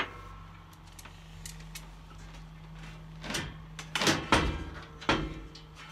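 Clunks and rattles of van shelving racking being handled. They start about three seconds in, with a cluster of knocks around four seconds and one more near five.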